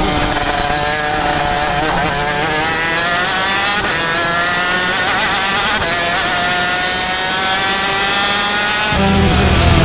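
Superkart's Yamaha TZ250 two-stroke engine at full throttle, heard onboard: its pitch climbs in long pulls and drops sharply at gear changes about two, four and six seconds in. Loud rock music cuts in near the end.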